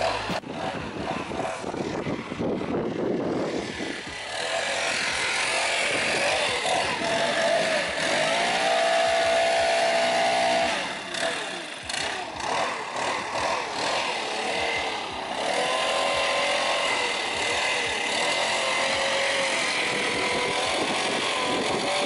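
Gas backpack leaf blower running close by, its engine pitch rising and falling as the throttle changes.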